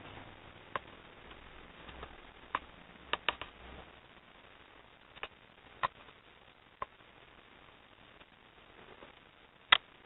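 A bird striking a window pane: irregular sharp knocks on the glass, seconds apart, with a quick run of three about three seconds in and the loudest knock near the end.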